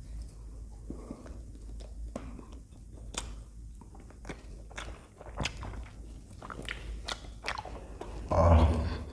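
Close-miked eating of a frozen ice cream bar on a stick: wet mouth clicks, smacks and chewing. Near the end comes one short, louder vocal sound.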